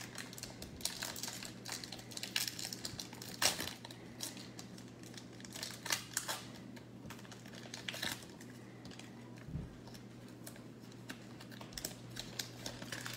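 Bowman baseball card pack wrapper being torn and peeled open by hand, a crimped pack that is hard to open: irregular crinkles and crackles, the sharpest about three and a half seconds in, over a low steady hum.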